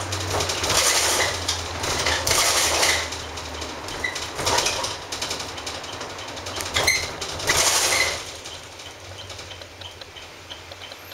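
Cabin noise inside a Chevrolet 4500/ARBOC minibus with a GM Duramax 6.6L diesel: engine hum and loud, uneven body rattles while it drives. About eight seconds in it goes quieter as the bus slows, and a turn signal ticks about twice a second.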